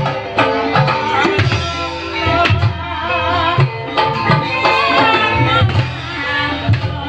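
Javanese ebeg accompaniment music: hand drums beating a lively rhythm under sustained pitched instrument tones, with a wavering high melody line above.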